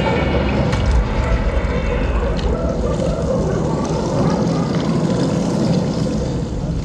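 A loud, steady low rumble with no tune, right after the show's music stops, most likely a sound effect played over the projection show's loudspeakers.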